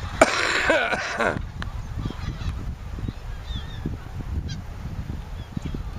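Geese honking as the flock is flushed: one loud, harsh call about a second long near the start, then a few faint short calls.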